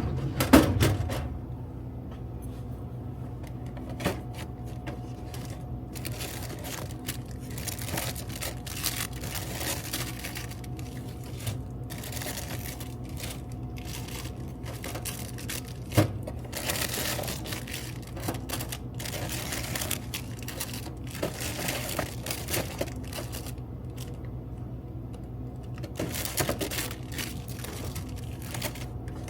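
Snack packets crinkling and clicking as they are handled and loaded into a vending machine during a restock, with a couple of sharper knocks, over a steady low hum.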